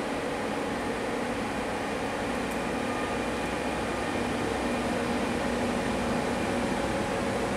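ÖBB Railjet hauled by a class 1116 Taurus electric locomotive rolling slowly into the station: a steady rumble with a low electric hum, growing slightly louder as it comes closer.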